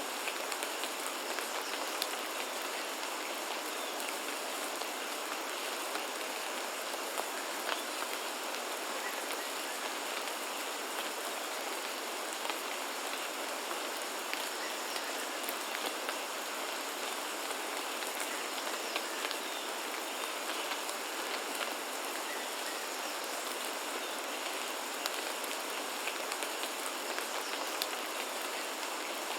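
Steady rain falling, an even hiss with many small drop impacts pattering through it.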